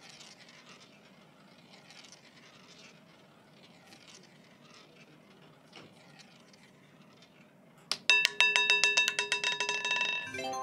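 A faint, even background hiss. About eight seconds in, the online roulette game plays a loud electronic chime of rapid ticking notes as the winning number comes up, and a lower second chime starts near the end.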